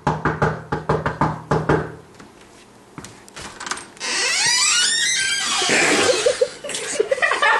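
A quick run of knocks on a wooden interior door over the first two seconds. About four seconds in comes a sudden loud rushing noise with sweeping squeals.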